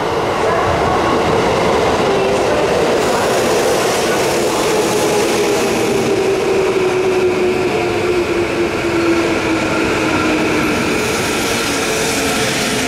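Tokyo Metro 15000 series electric train with Mitsubishi IGBT VVVF inverter control, running through the station under braking. Its inverter-motor whine falls slowly in pitch over a steady rumble of wheels on rail.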